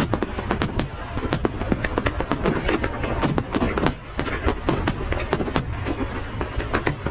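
Fireworks display: aerial shells bursting in quick succession, several sharp bangs and crackles a second over a steady low rumble.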